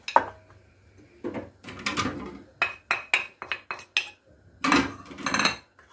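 A small plate and a wooden spoon knocking and clinking against a white enamel plate as spices are tipped and scraped in: a run of short, sharp clinks and taps, thickest in the middle and again near the end.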